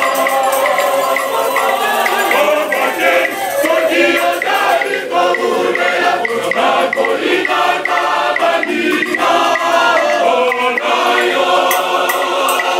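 Church choir singing a worship song, many voices together, over a steady light ticking beat.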